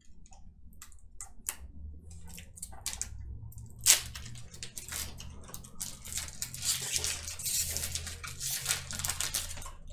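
A foil trading-card pack being torn open and its wrapper crinkled as the cards are slid out: scattered sharp crackles, one sharp snap about four seconds in, and a denser stretch of crinkling near the end, over a low steady hum.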